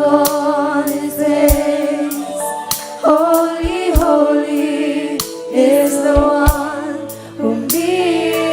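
Women's vocal group singing a gospel song in close harmony, held notes with vibrato, over music with sharp percussion strokes every second or so.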